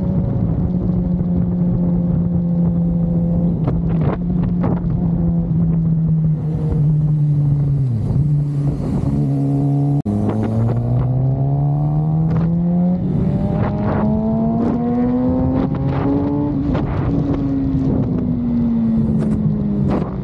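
Honda CB500 parallel-twin motorcycle engine under way. Its note holds steady, dips, then after a sudden change about halfway climbs steadily as the bike accelerates, peaks, and falls away as the throttle is rolled off.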